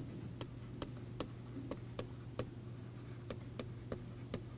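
Stylus pen tip tapping and clicking on a tablet while writing by hand: a run of light, irregular ticks, over a faint steady electrical hum.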